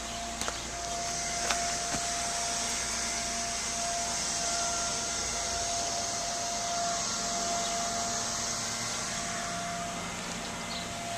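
A small motor running steadily, with a constant hiss and a steady mid-pitched whine, and a few faint clicks near the start.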